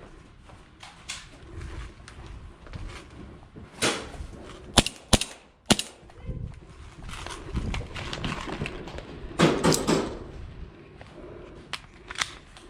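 Airsoft guns firing: sharp snapping shots, one about four seconds in, three in quick succession about a second later, a noisier cluster around ten seconds and a single snap near the end, over rustling movement.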